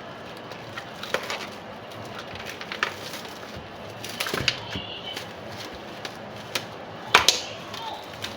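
Scattered clicks, knocks and rustles as a packet of chicken is cut open with a knife and handled, with the loudest knock a second or so before the end.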